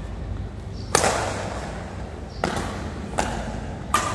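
Badminton rackets striking a shuttlecock in a rally: four sharp hits, the last three coming more quickly, each echoing briefly in a large hall.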